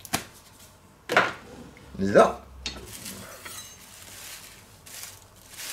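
Kitchen containers being handled and set down on a wooden cutting board: two sharp knocks about a second apart, then faint rustling of plastic wrap.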